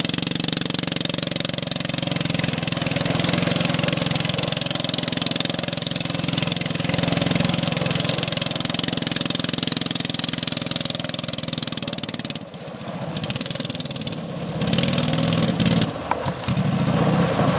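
Engine of a homemade quarter-scale RC truck running steadily, then dropping off briefly about twelve seconds in, again a couple of seconds later and once more near the end, picking back up each time.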